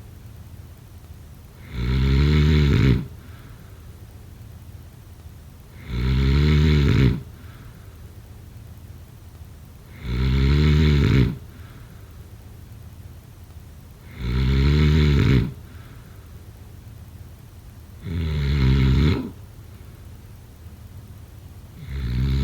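Snoring in a slow, even rhythm: a loud pitched snore about every four seconds, each lasting about a second, with a faint breath between. Five full snores, and a sixth starting right at the end.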